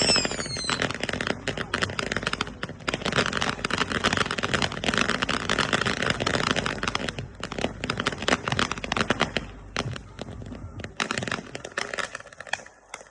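Old Glory firework fountains burning with a dense, rapid crackle. A short falling whistle sounds right at the start, and the crackle thins out and dies away near the end.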